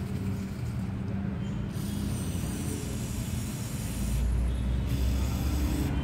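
Aerosol carbon cleaner sprayed through a straw nozzle onto spark plugs, in hissing bursts: one of about two seconds near the middle and a shorter one near the end. A low rumble runs underneath and grows louder in the last two seconds.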